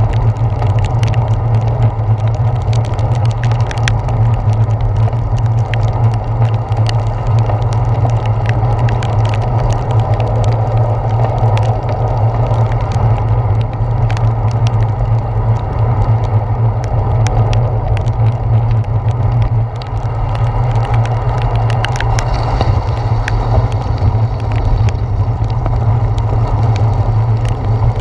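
Bicycle ride in heavy rain heard from a handlebar-mounted GoPro Hero 4: a loud, steady low rumble of road vibration, tyre hiss on wet pavement, and frequent sharp ticks of raindrops striking the camera.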